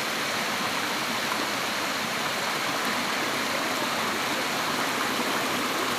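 Waterfall: water pouring and splashing steadily.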